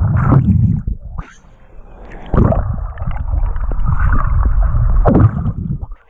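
Muffled, deep rumbling and gurgling of churning water heard with the microphone underwater in a waterfall's plunge pool. It eases for about a second early on, swells back loud, and cuts off suddenly at the end.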